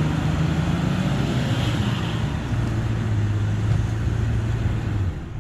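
Opel Frontera engine running at high revs under load while the SUV is stuck in bog mud, the note holding steady and easing off near the end.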